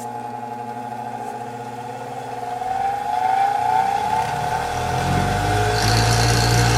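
Bench grinder rated at 3,450 RPM switched on and spinning up to speed. A rising whine and a low hum build from about two and a half seconds in and grow steadily louder, with a hiss from the spinning wheels coming in near the end.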